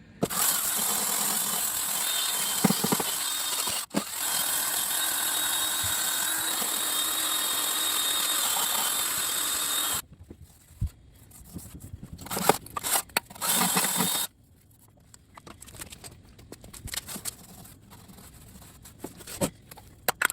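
Aerosol spray paint can hissing in a long steady spray, touching up a lawn tractor's mower deck, broken by a brief pause about four seconds in and stopping about halfway through. A few short spray bursts follow, then quieter handling noise.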